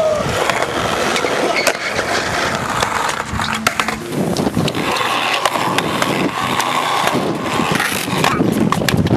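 Skateboard wheels rolling on concrete, a continuous rough rumble, with a few sharp knocks from the board.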